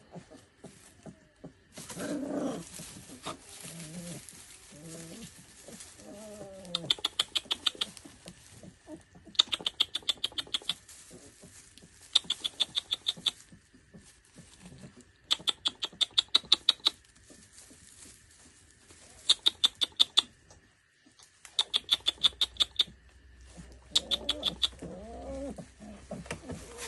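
Central Asian Shepherd puppies whimpering in short rising and falling whines, mainly near the start and near the end. They are cut across by seven loud bursts of rapid clicking, each about a second long at roughly eight clicks a second.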